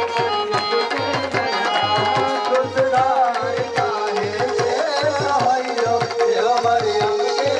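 Devotional worship music: a hand drum keeps a steady beat under an electronic keyboard melody, with voices singing along.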